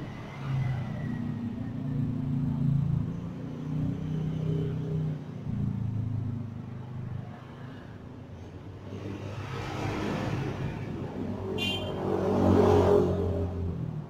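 Engines of passing road vehicles, a low hum that shifts in pitch and swells twice, loudest near the end, with one sharp click shortly before the loudest swell.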